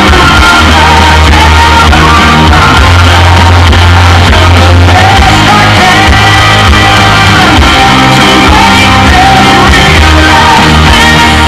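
Loud music with a singing voice over held bass notes, with no break.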